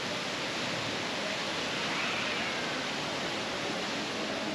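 Steady rushing of moving water, an even hiss with no breaks.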